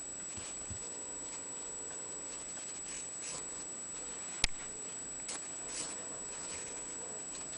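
Faint soft scuffs of a ragdoll kitten's paws moving about on a quilted blanket, over steady hiss and a constant high whine. One sharp click stands out about four and a half seconds in.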